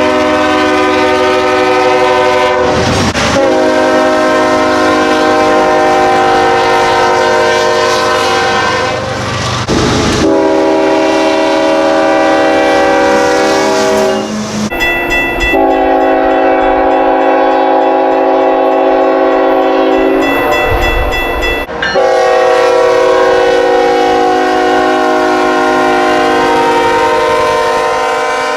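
Nathan Airchime K5HL five-chime locomotive horns sounding long, sustained chord blasts, several separate recordings spliced back to back. The horn changes abruptly about 3, 10, 14.5 and 22 seconds in.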